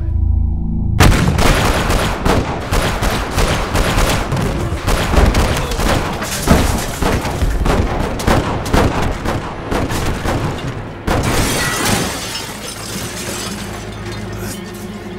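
Film battle sound effects: a low rumble, then about ten seconds of dense, rapid gunfire and impacts, easing into a steadier mix of noise near the end.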